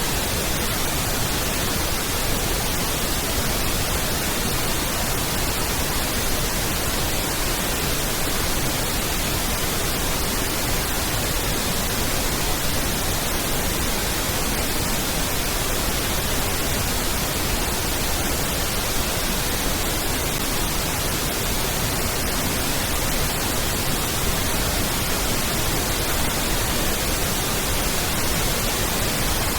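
Pink noise test signal: a steady, even hiss spread across all pitches, used for aligning and equalising a sound system.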